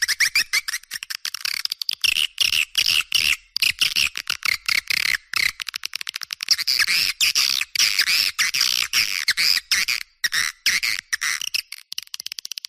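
Swiftlet lure recording: a dense stream of rapid, high twittering chirps from a flock of swiftlets, with brief gaps, thin and trebly with no low end. It is a call playback used to draw swiftlets to a nesting house.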